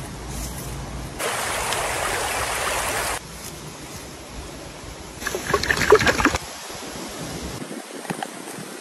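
A flowing stream runs steadily, its loudness jumping up and back down abruptly. About five seconds in there is about a second of sharp, close crackling and clicking, the loudest sound.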